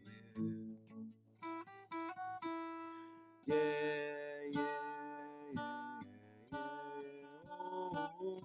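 Acoustic guitar being strummed and picked, with chords ringing on between strokes.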